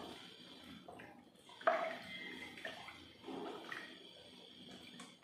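Wooden spoon stirring a watery mix of toor dal, tomato and spices in a steel pressure cooker: faint, uneven swishing and splashing of the liquid.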